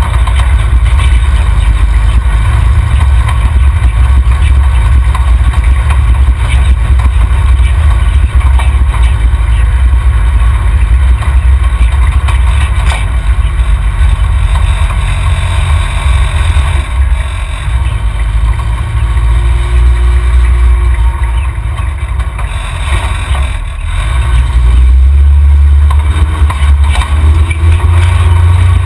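Tube-frame off-road 4x4 driving over desert ground, heard from under the chassis by the rear axle: a loud, steady low rumble of engine and drivetrain that eases off for a few seconds about two-thirds of the way through.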